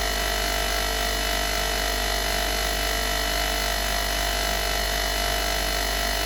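Electric motor-driven wire brush wheel running steadily with an even hum and whine, its pitch and level unchanging.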